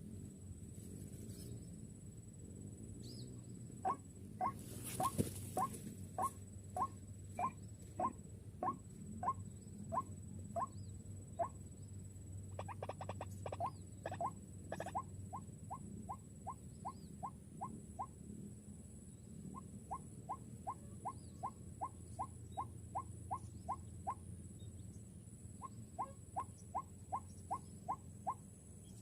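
White-breasted waterhen calling: long series of short, clipped notes that start about four seconds in at about two a second, speed up to about three a second in later series, and are broken by short pauses. A steady low hum runs underneath.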